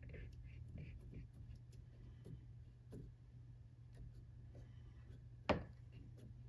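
A bar clamp being handled and tightened by its screw handle against a wood patch on a door jamb: small clicks and scraping from the clamp, with one sharp knock about five and a half seconds in.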